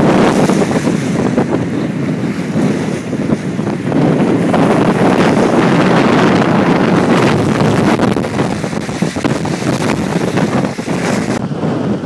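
Strong, gusting wind buffeting the microphone over the wash of choppy, whitecapped waves on a lake. The high hiss drops away abruptly near the end.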